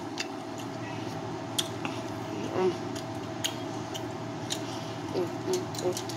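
Close-up chewing of a bite of sausage and bacon sandwich: scattered wet mouth clicks and smacks, with a couple of brief hummed vocal sounds, over a steady low room hum.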